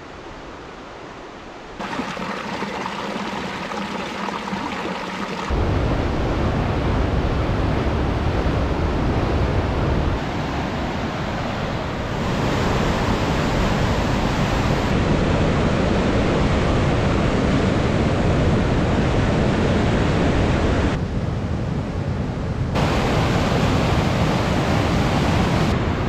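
Whitewater of a mountain river rushing over rocks in rapids, a steady loud noise of water. It starts quieter and steps up sharply about two seconds in and again a few seconds later, then shifts abruptly a few more times as the shots change.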